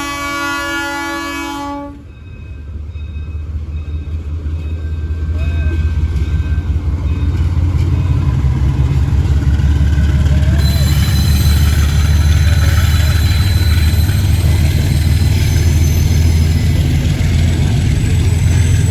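A GE U20C diesel locomotive's horn sounds with several tones and cuts off about two seconds in. Then the locomotive's V12 diesel engine runs loud and deep, growing louder over several seconds before holding steady.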